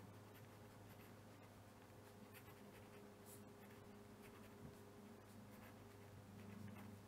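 Very faint pen strokes on paper as a few words are handwritten, over a low steady electrical hum.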